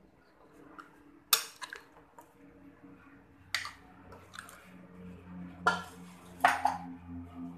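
A metal spoon stirring grated coconut and water in a glass bowl, clinking sharply against the glass several times, while the coconut is mixed to make coconut milk (santan). A low hum comes in during the second half.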